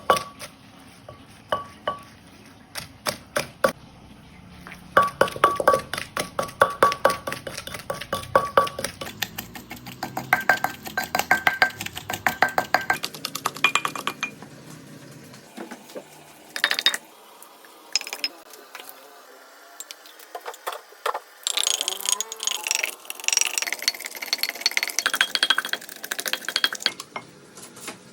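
Kitchen utensils clinking and knocking against pots and dishes. There are scattered strikes, then runs of quick rhythmic strikes with a short metallic ring, and near the end a busier stretch of clatter.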